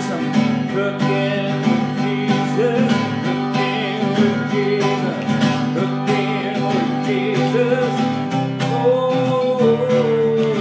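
Theme song: acoustic guitar music with strummed chords, held at a steady loudness.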